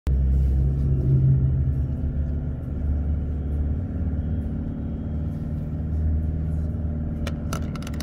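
Four-wheel-drive vehicle's engine running steadily as it drives over soft beach sand, heard from inside the cab as a low, even drone. A few sharp clicks come near the end.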